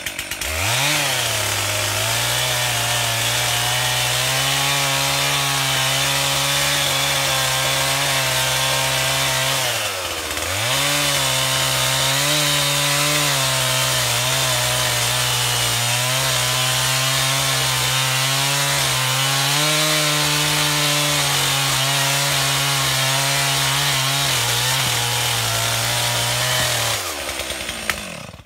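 Two-stroke chainsaw revving up from idle and running at high speed as it cuts into a tree trunk. The engine note dips briefly about ten seconds in, picks back up, then falls away and dies near the end.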